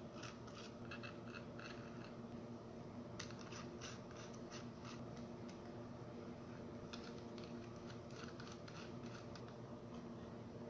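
Light clicking and scraping of small laser-cut frame parts handled and pressed into place by hand, in three bursts of quick ticks, over a steady low hum.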